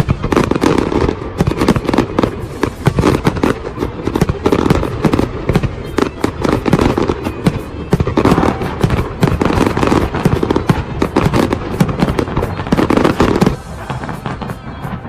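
Fireworks display: a dense, continuous barrage of rapid bangs and crackles, thinning a little near the end.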